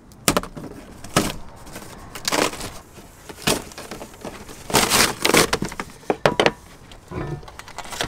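Heavy cardboard shipping box with a wooden frame inside being ripped apart by hand: a series of loud, sharp tearing pulls about once a second, with a quick cluster of rips about five seconds in.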